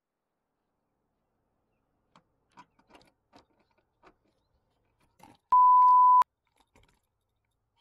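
A few faint clicks and taps, then a single loud, steady, pure beep lasting under a second, about five and a half seconds in: a censor bleep of the kind laid over a blurted word.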